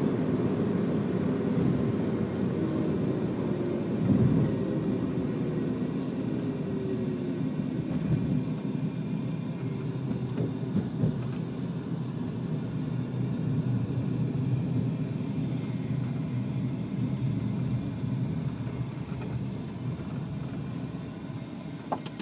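Car engine and road noise from a moving car, a steady low rumble. Over the first several seconds a drone slowly falls in pitch, as the car slows. The noise eases off near the end.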